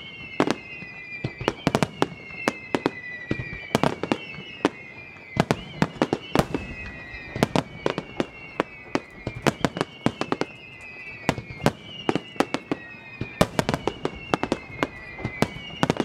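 Fireworks finale barrage: dense, overlapping explosions of aerial shells, often several a second, with high whistling tones that slide slowly down in pitch and start again and again.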